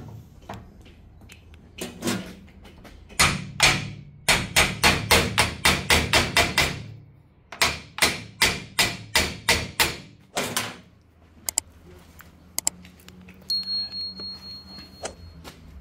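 Hammer blows on a steel alternator mounting bracket clamped in a bench vise: two runs of quick, even strikes, about three a second, working the bracket to clear a small snag in its fit. Near the end a steady high electronic beep sounds.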